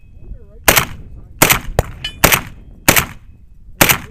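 Shots from an AK-pattern rifle fired close by at a steady, unhurried pace: five loud cracks about three-quarters of a second apart, with a lighter crack between the second and third.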